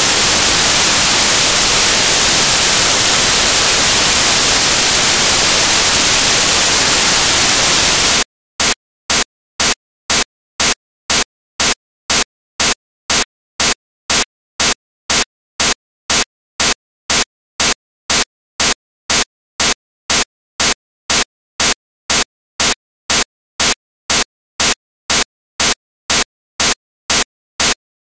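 Loud, steady hiss of white noise like radio static. About eight seconds in it turns into a regular pulse of short noise bursts, about two a second.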